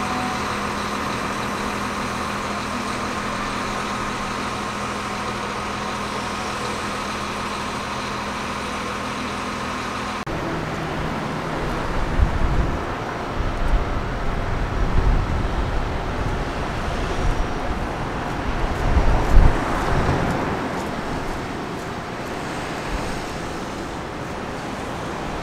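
Diesel engine of heavy construction machinery running steadily with an even hum. About ten seconds in, the sound changes abruptly to irregular low rumbling with a series of heavy thuds.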